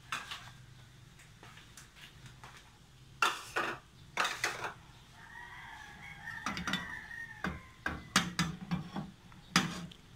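Several separate knocks and clinks of a metal kawali and kitchen utensils being handled, while the oil heats. A faint animal call sounds in the background around the middle.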